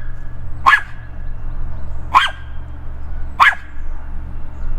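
A dog barking at a squirrel up a tree: three sharp single barks, about one every second and a half.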